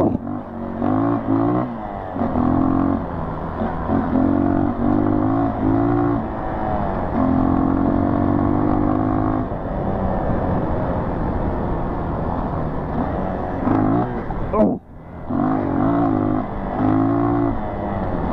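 Dirt bike engine revving hard and shifting up through the gears at speed on a sandy trail, the pitch climbing and breaking off with each shift, then held steady. About 15 seconds in there is a sharp jolt, the engine note drops out for a moment, then it revs up again.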